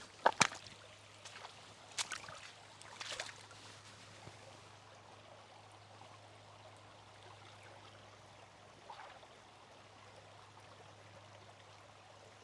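Creek water flowing steadily in the background. Over it come a few sharp clicks or knocks: two loud ones right at the start, then single ones about two and three seconds in, and a faint one near the end.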